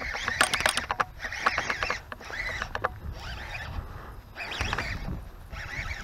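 Baitcasting fishing reel being worked while a hooked fish is fought: a clicking, whirring reel sound in bursts about a second long with short pauses between, from the handle being cranked and line being drawn in.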